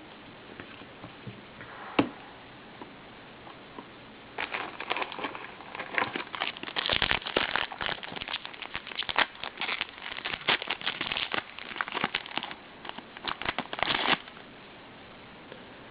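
Crinkling and rustling as football trading cards and their packaging are handled. It comes in dense, irregular bursts from about four seconds in until near the end, after a single sharp click about two seconds in.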